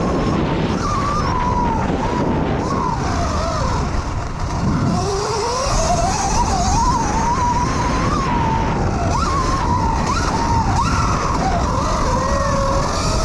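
Electric dirt bike motor whining under racing throttle, its pitch rising and falling with speed over a steady rush of noise. About a third of the way in the whine drops low and then climbs steadily as the bike accelerates. Near the end come a few quick upward sweeps.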